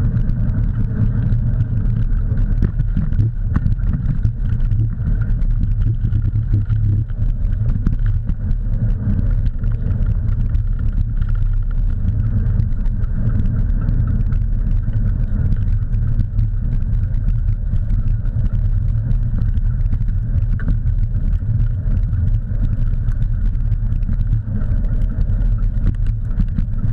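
Steady loud rumble of tyres rolling fast over a rough dirt trail, with constant small rattles and knocks from the bumps.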